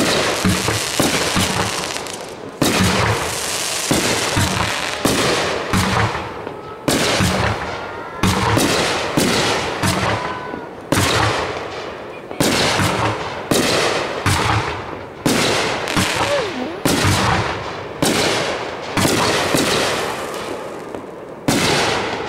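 Aerial fireworks going off in quick succession: about a dozen and a half loud bursts, one every second or so, each starting sharply and dying away before the next.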